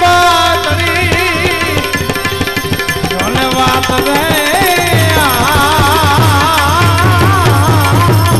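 Live Gujarati devotional folk music (bhajan): tabla keeps a steady rhythm under a melody line whose pitch wavers.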